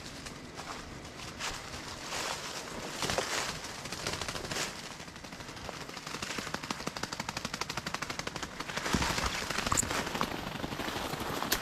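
Footsteps crunching through dry fallen leaves and twigs, with branches brushing and snapping past. The crackling thickens into a dense, rapid run from about halfway through and is loudest near the end.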